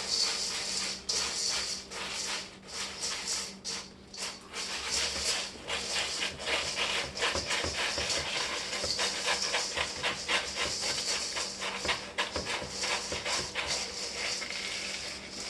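Dry cereal pieces rattling and rustling in a bowl as fingers sift through them, a dense run of small clicks.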